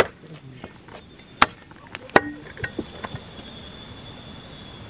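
A few sharp knocks of a machete striking dry wood, two louder blows about a second and a half and two seconds in. After that comes a steady, high-pitched chirring of night insects.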